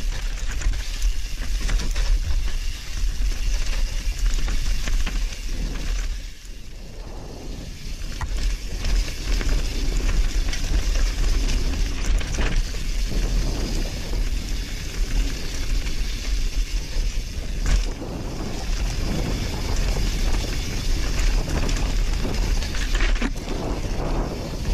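YT Capra mountain bike descending a rocky dirt singletrack at speed: tyres rolling over dirt and loose stones, with the bike rattling and knocking over rocks, under heavy wind buffeting on the camera microphone. It goes quieter for a couple of seconds about six seconds in.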